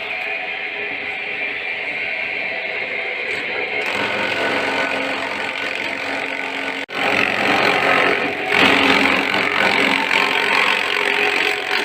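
Simple grass-chopping machine running steadily, a continuous mechanical noise that cuts out for an instant about seven seconds in and then comes back louder.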